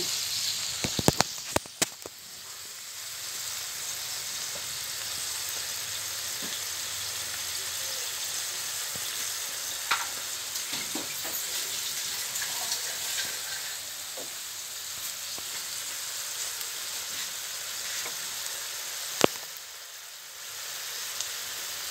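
Sliced native bitter gourd, tomato and onion sizzling steadily in a hot wok, the fish sauce just added to the pan. A few sharp knocks come in a cluster about a second in and once more near the end.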